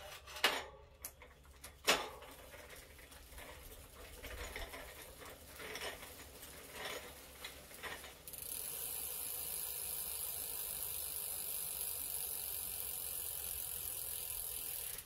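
Sharp clicks and knocks from bicycle repair work, with parts being handled. About eight seconds in, a steady high hiss starts.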